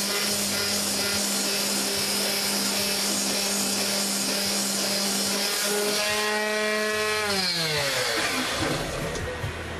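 Electric mouse detail sander running steadily against a steel knife blade with 60-grit paper, taking off tarnish. About seven seconds in it is switched off and its motor winds down, the pitch falling away over a second or so.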